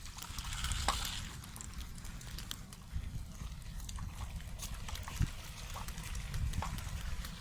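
A Welsh corgi sloshing through shallow stream water while the stream trickles, with a brief splash about half a second to a second in.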